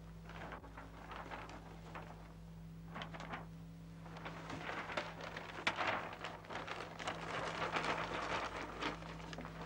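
A large sheet of paper rustling and crackling as it is handled and rolled up, growing louder in the second half, over a steady low hum.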